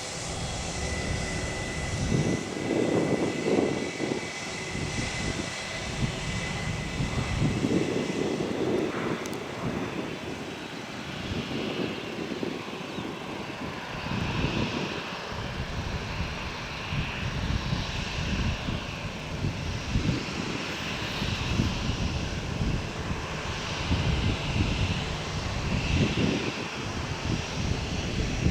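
Airbus A320's jet engines running at taxi power: a continuous rumble with uneven swells, and a pulsing higher hiss in the second half.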